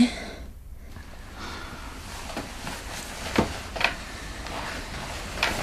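Bed covers rustling as a person shifts over in bed, with a few short, soft sharp sounds through the second half.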